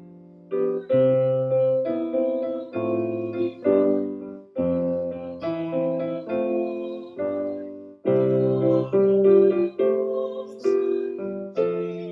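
Piano playing a slow hymn tune without singing: chords struck about once a second and left to ring.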